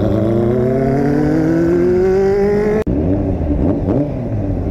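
Motorcycle engine accelerating, its pitch climbing steadily for nearly three seconds, then cut off abruptly; after the cut a motorcycle engine runs again with quick small rises and falls in revs.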